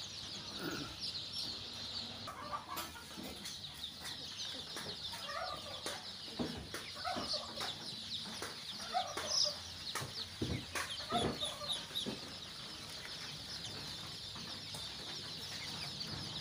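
Dense, continuous peeping of a large brood of ten-day-old deshi and Sonali chicks crowded in a brooder, with occasional louder calls and a few sharp knocks in the middle.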